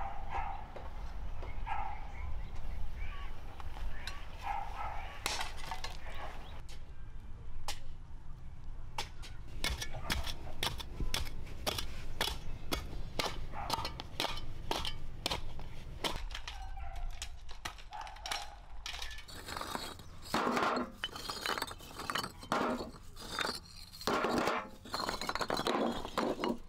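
A run of sharp knocks from digging tools working hard red clay soil. Near the end come louder clinks and clatters of hollow fired-clay bricks knocking together as they are loaded into a metal wheelbarrow.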